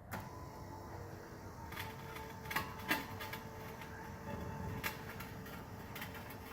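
A small electric gear motor, an old car seat motor from the plow's lift or tilt drive, running with a steady whine. A few sharp clicks come over it about two and a half, three and five seconds in.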